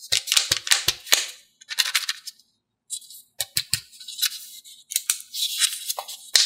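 Plastic wrapper of a Kinder Joy egg crinkling and crackling in short bursts as fingers handle it and work at its seam to peel it open.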